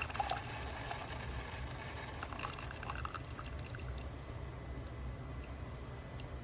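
Single-serve coffee maker brewing, coffee pouring and trickling into a mug over a steady low hum.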